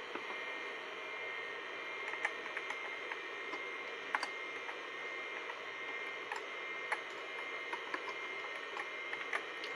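Computer keyboard keys clicking one at a time, about ten sharp, irregularly spaced keystrokes as a DOS command is typed. Under them runs the steady hum and hiss of the running 286 PC.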